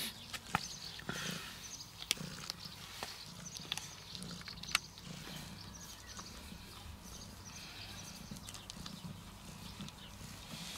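A kitten crunching dry cat kibble from a plastic dish, with irregular sharp crunches a second or so apart.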